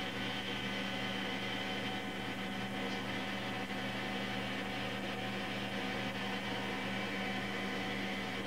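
A steady hum with a stack of even overtones under a constant hiss, unchanging throughout.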